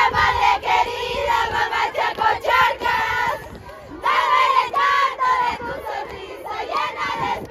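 A crowd of children's voices shouting a chant together in rhythmic phrases, with a short pause about three seconds in before the next phrase starts.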